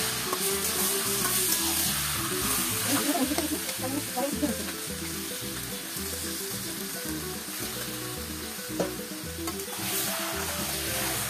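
Turmeric-rubbed meat sizzling and frying in hot oil and onion-tomato masala in an iron kadai, stirred and turned with a metal spatula that scrapes the pan. This is the searing stage of kosha mangsho. One sharper clink of the spatula on the pan comes late on.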